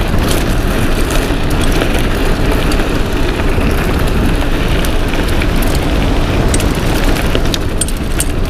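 Mountain bike riding heard through an action camera's microphone: loud wind buffeting and tyre rumble, with frequent small clicks and rattles from the bike.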